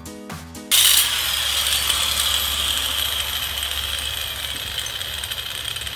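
Background music cuts off under a second in. A loud, steady machine noise follows, a motor hum under a high whine and hiss, and it slowly fades over the next few seconds.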